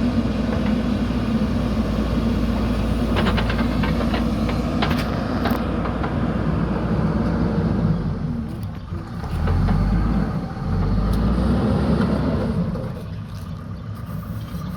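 JCB earthmoving machine's diesel engine running, swelling in level about two-thirds of the way through as it takes load, then easing off. A few short metallic clanks come about a third of the way in.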